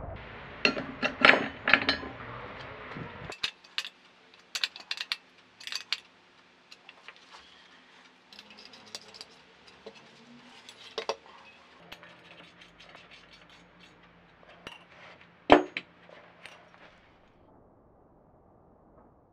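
Steel parts and hand tools clinking and tapping as a wrench and small bolts are worked on coil-spring assemblies in steel brackets: a busy clatter for the first three seconds or so, then scattered light clinks, with one sharp clank about three-quarters of the way through.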